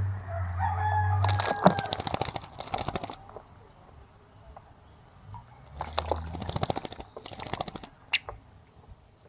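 Two bursts of rapid splashing and wing-fluttering from birds bathing in a bird bath, with a rooster crowing near the start.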